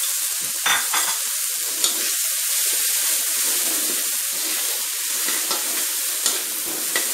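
Chopped garlic, bird's eye chilies and sliced spring onions sizzling steadily in hot oil in a wok, with a metal spatula scraping and now and then knocking against the wok as they are stirred.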